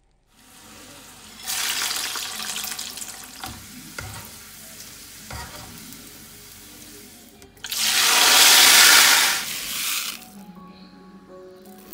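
Raisins and cashew nuts deep-frying in hot oil, a steady sizzle with a few light knocks, then a loud rush of running water for about two seconds. A few faint notes of background music come in near the end.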